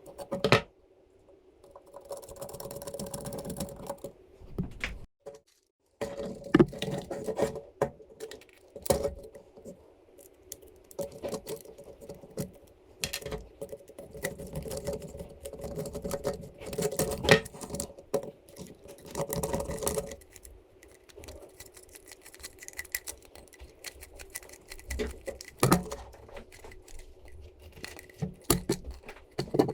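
Small hard parts being handled and fitted: irregular clicks, taps and rattles of plastic pieces, screws and nuts, with a few short stretches of scraping or rustling. The sound drops out completely for about a second, five seconds in.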